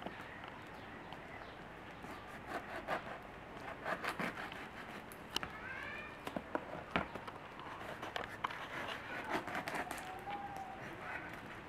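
Crusty bread rolls being cut with a knife and torn open by hand: irregular crackles and sharp clicks as the hard crust breaks and the blade knocks the plate. A few short whistled calls sound in the background around the middle and near the end.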